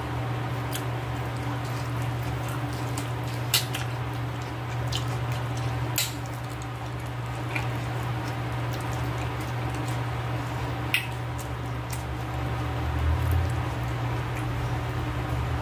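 Close-up mouth sounds of someone chewing and sucking on boiled okra: wet squishy smacks and scattered sharp clicks over a steady low hum.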